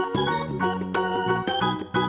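Background music: a bright tune of short notes that step up and down over a quick, steady beat.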